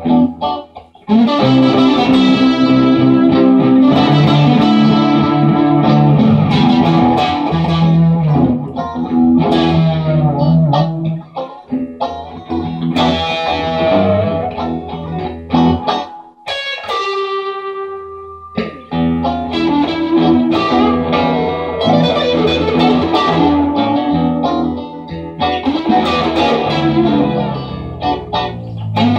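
Stratocaster-style electric guitar played amplified: a continuous instrumental of single-note lines and chords. About halfway through the playing drops out, leaving one held note ringing on its own for a couple of seconds before the full playing resumes.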